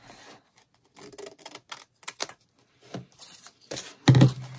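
Scissors cutting paper: a series of short, sharp snips with paper rustling. A louder thump comes near the end.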